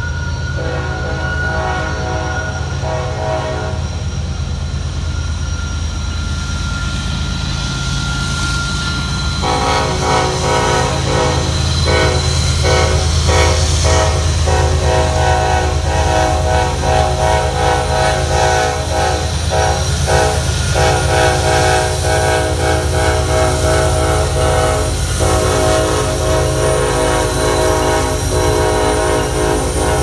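Diesel freight locomotive horn played as a horn show: one chord held for about three seconds near the start, then from about ten seconds in sounded over and over in short choppy blasts and longer held chords, over the steady low rumble of the locomotive's diesel engine.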